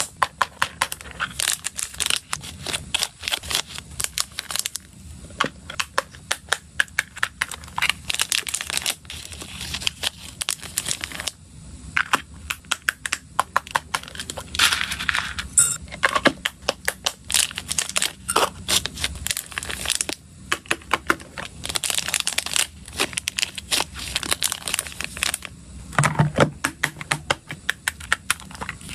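Small plastic snack containers and their snap-lock latch lids handled close up: many sharp plastic clicks, snaps and taps, in quick runs throughout, mixed with crinkling of plastic.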